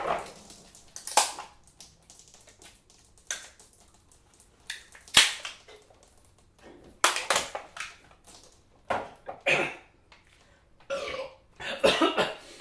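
Men shotgunning cans of beer: a string of short, noisy slurps and burps, about a dozen, with quiet gaps between.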